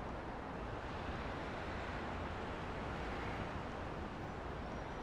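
Steady city street ambience: a low, even wash of distant traffic with no distinct events.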